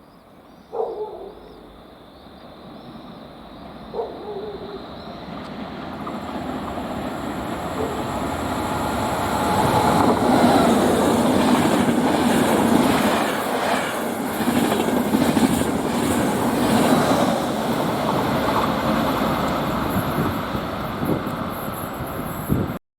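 A train approaches and passes close by, a steady rush of wheels and running gear that builds for several seconds and is loudest in the middle, with the clatter of wheels over rail joints, then eases off. Early on a dog barks twice.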